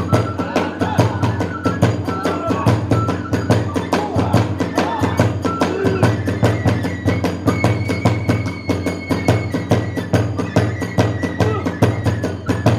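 Kagura festival music: drums and hand cymbals beating a fast, driving rhythm, with a bamboo flute playing long held notes over it.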